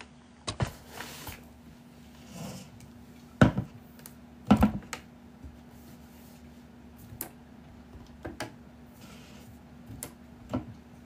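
Irregular clicks and knocks of someone handling things at a desk, with two louder thumps about three and a half and four and a half seconds in, over a steady low hum.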